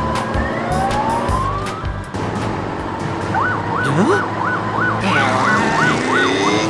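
Emergency vehicle siren: a rising wail, then a fast two-tone high-low siren alternating about twice a second through the second half.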